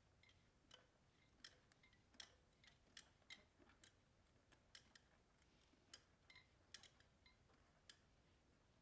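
Faint, irregular metal clicks of a 7mm wrench and vice grips working a broken motorcycle spoke's nipple loose, a dozen or so sharp ticks spread unevenly.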